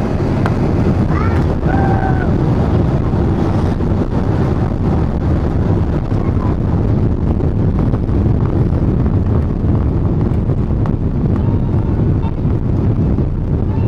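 Steady, loud low rumble in the cabin of a Boeing 777-300 in motion, from its jet engines and airflow, with no clear rise or fall.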